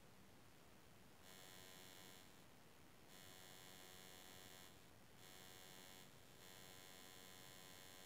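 Near silence with a faint electrical buzz of many high tones that cuts in about a second in and drops out briefly several times.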